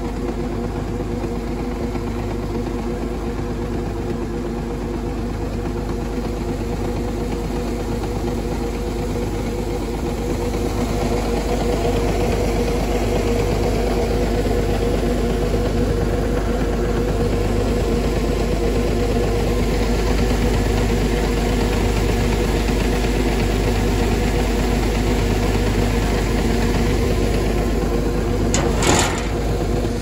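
A motor running steadily with a hum and a slow regular pulse, a little louder from about a third of the way in. A short sharp clank comes near the end.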